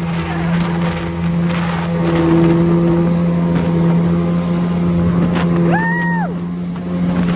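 Jet ski engine running steadily at speed, with water and wind noise over it. A brief high tone rises, holds and falls about six seconds in.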